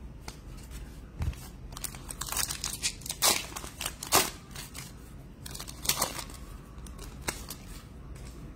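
Foil trading-card pack wrapper being torn open and crinkled by hand, a string of sharp crackling rustles with the loudest two in the middle.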